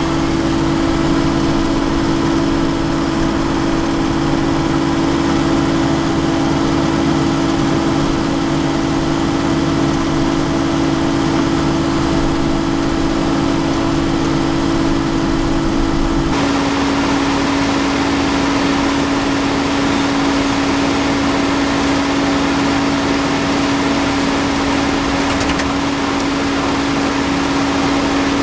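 Engines of heavy road-paving machinery running steadily with a constant hum. About two-thirds of the way through, the sound switches abruptly to a slightly lower, steady hum.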